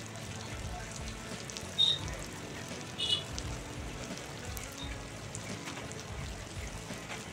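Chicken pieces sizzling in hot oil in a clay pot over a wood fire. Two short high-pitched chirps stand out, about two and three seconds in.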